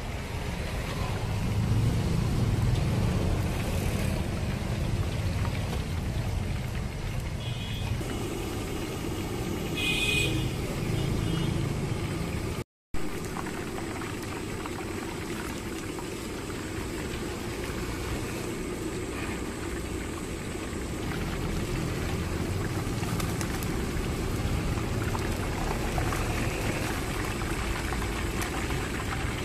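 Chicken deep-frying in a kadai of hot oil, the oil bubbling and sizzling steadily over a steady low rumble. The sound cuts out for a moment near the middle.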